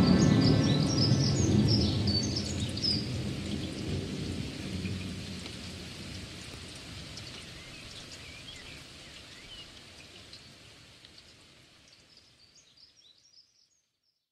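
Tail of a background soundtrack with a rain-and-thunder soundscape, fading out steadily until it goes silent shortly before the end. A few high chirps sound over it near the start and again just before it dies away.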